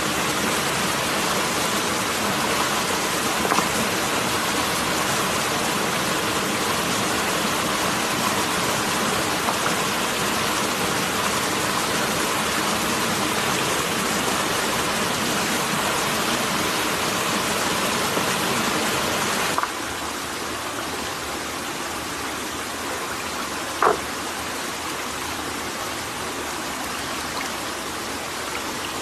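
Small waterfall and rocky stream rushing steadily. About two-thirds of the way through the sound turns quieter and thinner, and a single short sharp click stands out near the end.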